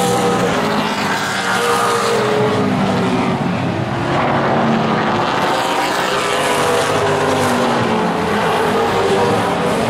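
Late model stock car engines racing at full throttle around a short oval. Several engine notes overlap, their pitch rising and falling as the cars pass and go down the straights and into the turns.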